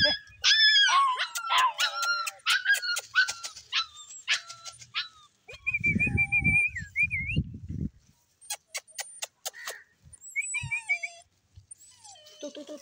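Puppies whining and yipping: a run of high-pitched, wavering cries over the first five seconds and another short whine about ten seconds in. A burst of low rumbling noise comes in the middle, with scattered clicks throughout.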